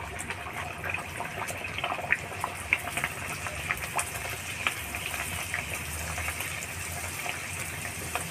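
Bhatura dough deep-frying in very hot oil in a kadhai: a steady sizzle with many scattered crackles and pops.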